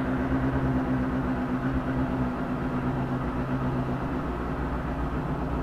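Benelli TNT 600i inline-four engine idling steadily just after a cold start, after the bike has stood unused for two or three days.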